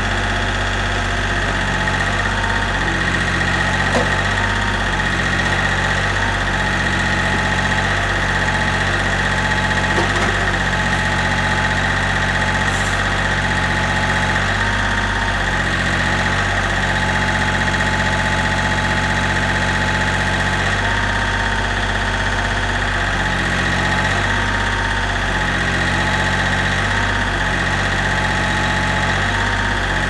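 John Deere 4300 compact tractor's three-cylinder diesel engine running steadily while the backhoe hydraulics are worked, with a whine that steps up and down in pitch as the boom and bucket move. There are a couple of light knocks.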